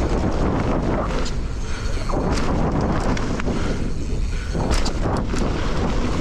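Mountain bike riding fast down a dirt trail: a steady rush of wind on the microphone and tyre noise, with frequent sharp knocks and rattles from the bike over bumps.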